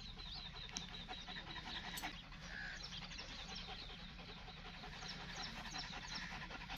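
A greyhound panting faintly, with short high chirps of small birds scattered through it.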